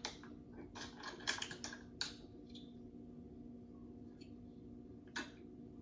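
Scattered light clicks and taps, a quick cluster about a second in and single ones later, over a steady low hum.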